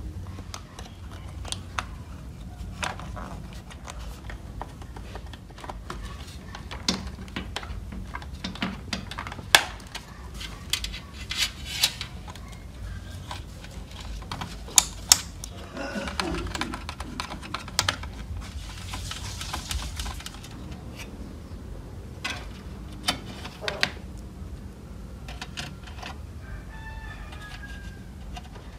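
Irregular small clicks and taps of a screwdriver, connectors and parts being handled on a disassembled disc player's sheet-metal chassis and circuit board, with a short hiss about two-thirds of the way through.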